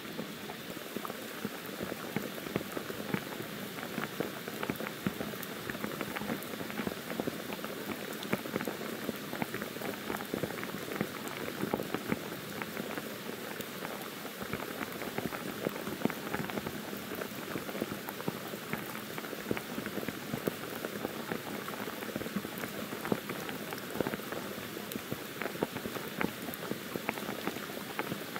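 Monsoon rain pouring steadily on forest foliage: a dense, even patter of countless drops.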